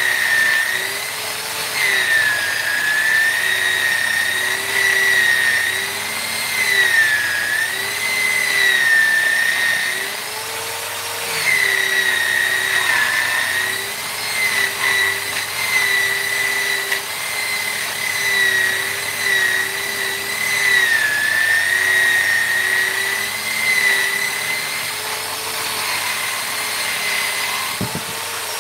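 High-speed electric rotary carving tool running against wood: a steady whine whose pitch sags and recovers as the bit bites, easing off briefly about ten seconds in.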